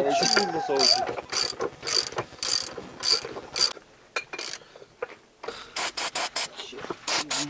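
Hand ratchet wrench clicking as it turns a nut on a tractor wheel hub, about two clicks a second, then a quicker run of clicks near the end.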